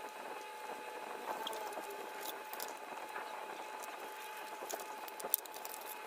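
Utility knife blade cutting and scraping through thin foam board on a cutting mat: faint, scattered scratches and small clicks, with a sharper click a little after five seconds in as the foam parts are handled.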